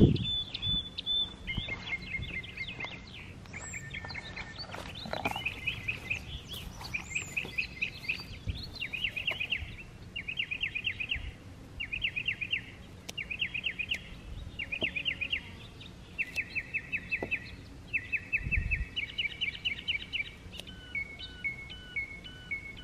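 A songbird sings a long series of short, rapid trills, one after another with brief pauses, each phrase pitched a little differently. Near the end a bird calls in short repeated notes, over a soft low outdoor rumble with an occasional thump.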